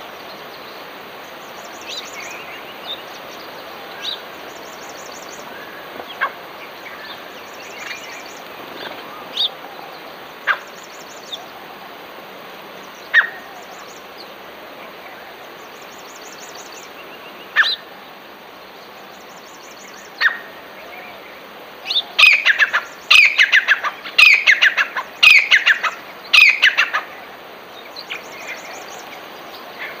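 Songbirds chirping: scattered single chirps over a steady outdoor hiss, then several seconds of loud, rapid chattering calls in quick succession near the end.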